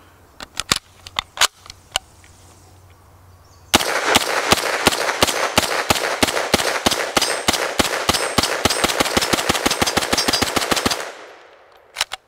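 POF-5 9mm pistol, a Pakistani-built MP5 clone, fired in a long rapid string of shots at several a second for about seven seconds. The shots start about four seconds in. Before them come a few sharp clicks as a magazine is loaded into it.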